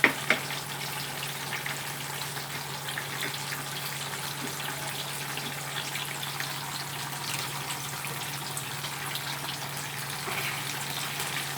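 Tofu skin frying in hot oil: a steady sizzle with scattered small crackles over a low steady hum, and two sharp clicks right at the start.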